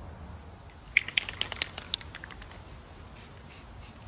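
Aerosol spray can of filler primer being shaken, its mixing ball rattling in a quick run of about eight sharp clicks, then short faint hisses of spray near the end.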